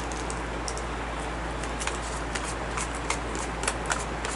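Small plastic packaging crinkling and clicking as it is handled and opened: irregular short crackles over a steady low hum.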